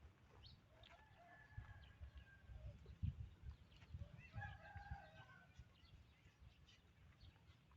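Two faint, drawn-out animal calls about three seconds apart, each holding a fairly level pitch, over soft low thumps and small clicks.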